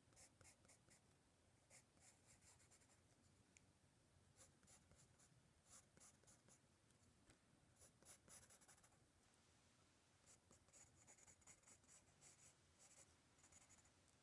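Pencil scratching on sketch-pad paper in clusters of short, quick strokes with brief pauses between them, faint.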